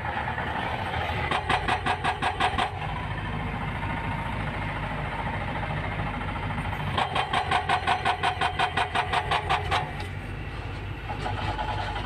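Excavator diesel engine running steadily, with two spells of rapid, even hammering, about six to eight blows a second, from a hydraulic breaker pounding limestone rock.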